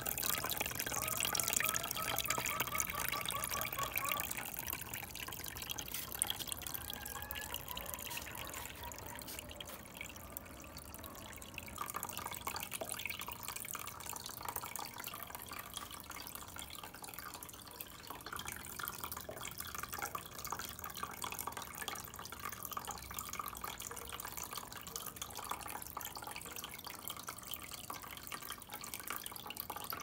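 Water from a small tabletop fountain trickling and splashing down its rock-like tiers into the basin, with drips, a little louder in the first few seconds.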